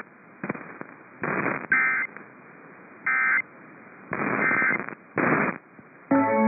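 Emergency Alert System end-of-message data tones (the SAME "NNNN" code) following a weather warning: a series of short electronic bursts about a second apart, with faint radio hiss between them.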